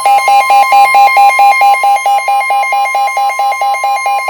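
Emergency weather alert tone: a loud electronic alarm of rapid, even beeps, about six a second, over a steady higher tone, announcing a blizzard warning.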